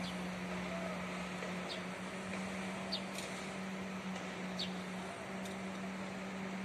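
Construction-site ambience: a steady low machinery drone over a broad background hiss, with a few short, high chirps scattered through.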